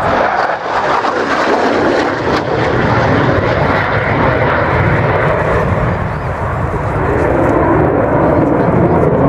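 Lockheed Martin F-35 Lightning II fighter's single F135 afterburning turbofan: loud, continuous jet noise as the aircraft flies past and pulls a tight, high-g turn, easing slightly about six seconds in and building again near the end.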